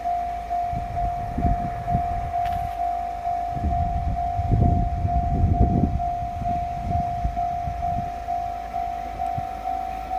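Japanese railway level-crossing warning bell ringing in a steady clang about twice a second, the signal that a train is approaching. A low rumble swells under it between about one and six seconds in.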